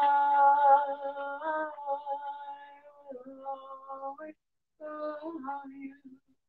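A woman singing wordlessly in three phrases of long held notes that step up and down in pitch, with short breaks between them.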